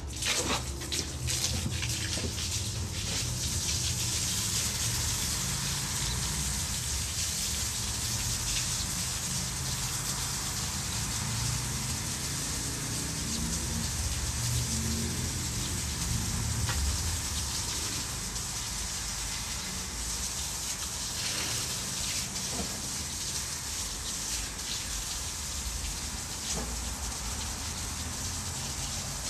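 Garden hose spray nozzle spraying water onto the ground and kennel floor: a steady hiss that starts suddenly.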